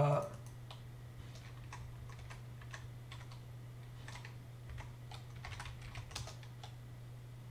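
Computer keyboard typing: a scattered run of soft key clicks over a steady low hum.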